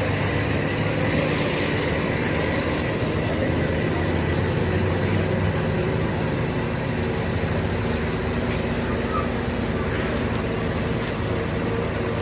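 Heavy-haul truck's diesel engine running steadily with a low, even drone.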